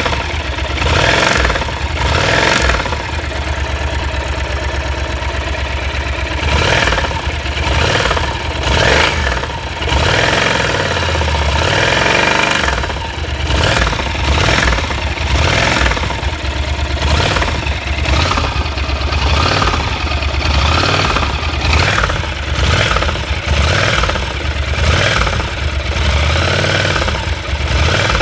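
Yamaha TDM 850 (4TX) parallel-twin engine idling and revved in short, repeated blips. It has a knock from its connecting-rod big-end bearings, which the owner says are worn out.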